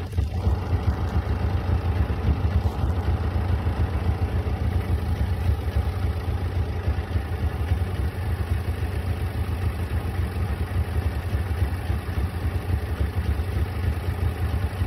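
Dump truck's engine idling steadily, a continuous low rumble with a fast even pulse.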